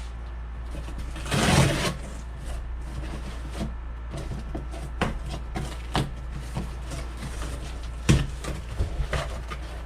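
Parts and packaging being handled while unboxing: a loud rustle of packaging about a second and a half in, then a few sharp knocks and clicks as items are picked up and set down, over a steady low hum.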